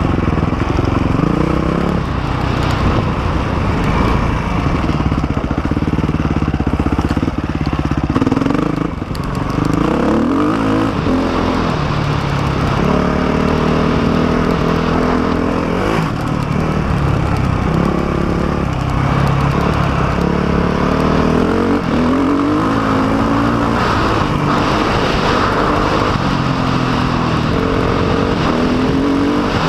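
Dirt bike engine heard close up from the rider's helmet, revving up and easing off again and again as the throttle is worked along a dirt trail, its pitch climbing and dropping repeatedly. A steady rush of wind and riding noise runs underneath.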